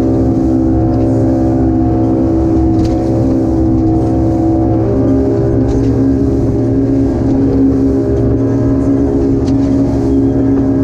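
A fishing boat's engine running steadily while the boat is under way, a constant loud drone with rushing water and wind beneath it. The engine note shifts slightly about five seconds in.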